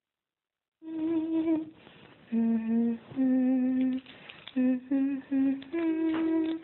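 A woman humming a tune in a series of held notes, starting about a second in.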